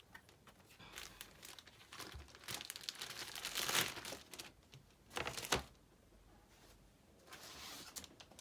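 Plastic packaging crinkling and crackling in handled bursts as a graded comic slab is unwrapped from its packing, with one sharp loud crackle about five seconds in.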